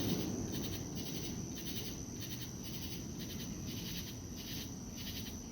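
Night insects chirping in a pulsing chorus, about two pulses a second, over a steady high-pitched trill.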